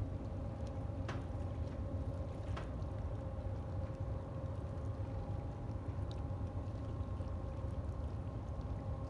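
Great Lakes freighter's machinery running as it passes: a steady low rumble with a constant hum over it, and a couple of faint clicks about one and two and a half seconds in.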